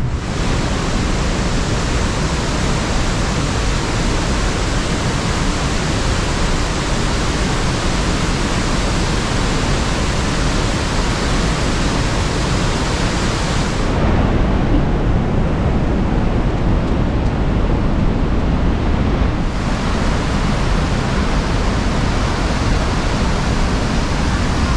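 Steady, loud rush of falling water at Niagara Falls, close to the falls. The sound changes abruptly about 14 seconds in and again about five seconds later.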